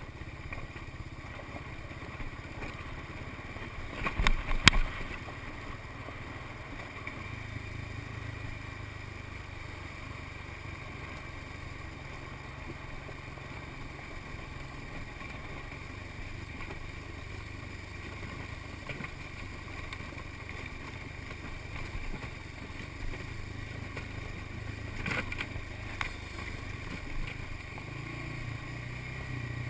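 An ATV engine running steadily on the move, with a few sharp knocks about four seconds in and a few more around 25 seconds.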